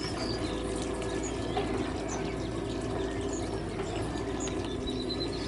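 Faint high bird chirps: scattered single notes, then a quick run of short rising chirps near the end, over a steady background hum.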